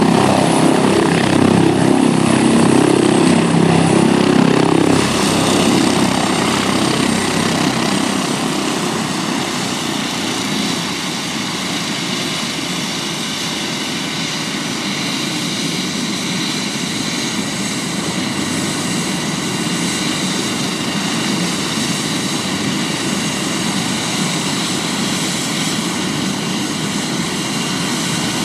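Airbus H145 helicopter settling onto the pad. Its rotor noise is heavy for the first five seconds or so, then drops away. The helicopter keeps running steadily on the ground with its turbine whine and turning rotor.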